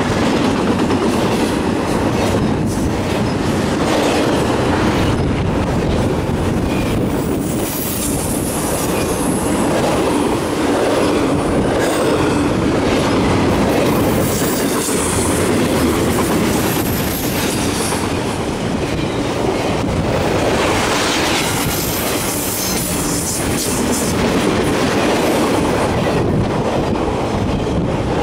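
Double-stack intermodal freight cars rolling past at speed: a steady rumble and clatter of steel wheels over the rails, with brief high-pitched wheel squeals now and then.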